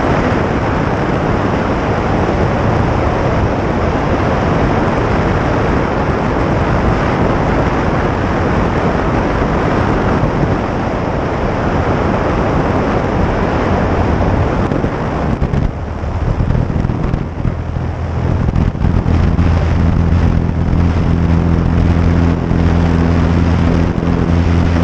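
Wind rushing over an outside-mounted camera microphone on a single-engine light airplane landing and rolling out. About two-thirds through, as the plane slows, the wind noise drops away and the engine's low, steady drone at taxi power comes through.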